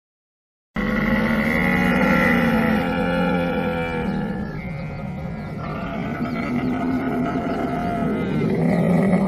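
Camel vocalizing: a loud, long, low groaning call with shifting pitch that starts abruptly after a moment of silence.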